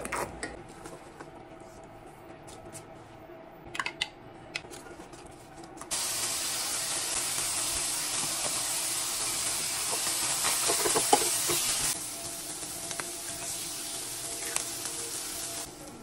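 Shredded cabbage and tuna frying in an oiled pan, with spatula stirring and a few sharp clicks of utensils against the pan. The sizzle turns loud and steady about six seconds in and drops back to a softer sizzle about twelve seconds in.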